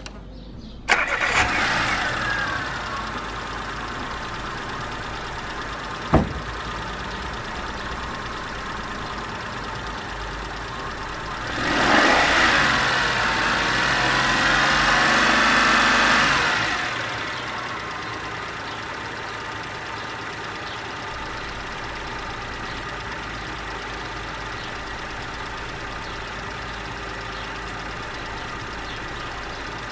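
Daewoo Matiz engine starting about a second in and idling, revved once for several seconds in the middle, then back to a steady idle. The alternator noise being chased is no longer heard, with the alternator belt freshly tensioned.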